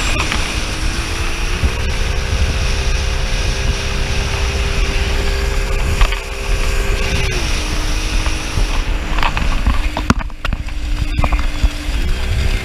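Speedboat engine running at speed; its pitch climbs about a second and a half in, drops near seven seconds and climbs again near the end as the throttle changes. Wind and water rush underneath.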